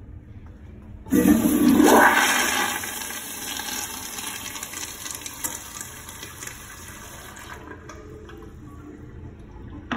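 Kohler Wellworth PL tank toilet flushing after its chrome lever is pressed. A loud rush of water starts about a second in and eases off. The hiss stops abruptly a few seconds later, leaving a quieter trickle of water.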